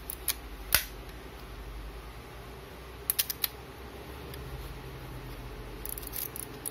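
Agfa Super Silette-L 35 mm camera being worked by hand, its shutter and winding mechanism clicking: one sharp click just under a second in, a quick run of three or four small clicks about halfway, and a few faint clicks near the end.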